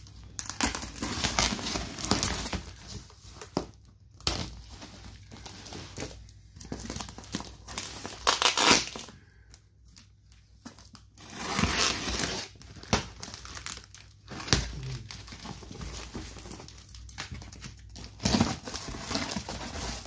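Cardboard parcel being cut open: a utility knife slitting the plastic packing tape, tape tearing and cardboard flaps crinkling and scraping, in irregular bursts with short pauses.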